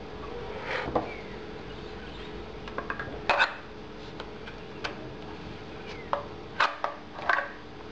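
A knife and its plastic sheath being handled: scattered clicks, light knocks and short scrapes, the loudest pair about three seconds in and a cluster near the end, over a steady low hum.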